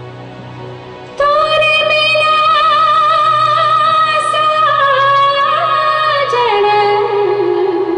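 Live song with keyboard accompaniment: a female voice comes in loudly about a second in on a long, wordless held note with vibrato, then steps down in pitch twice near the end over soft keyboard backing.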